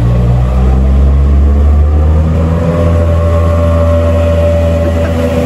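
Motorboat engine running hard as a blue aluminum cabin river boat speeds past on a fast-flowing river, throwing spray. It drones steadily, and its pitch rises slightly about halfway through.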